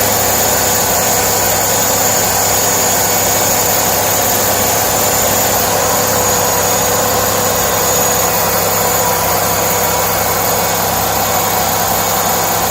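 Car engine idling, a steady hum with a high thin whine over it: the weird humming noise the owner wonders may come from the fan belt.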